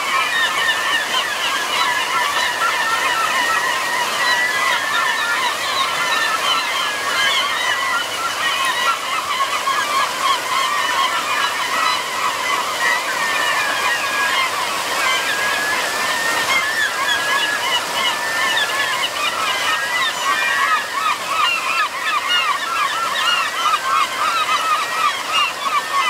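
A large flock of gulls calling over one another in a constant din of short, repeated cries, over the steady rush of a stream's rapids.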